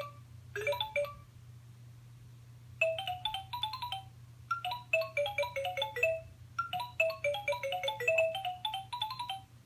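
LeapFrog Chat & Count toy phone playing a beeping electronic tune of short, quick notes, in runs separated by brief pauses, over a faint steady low hum.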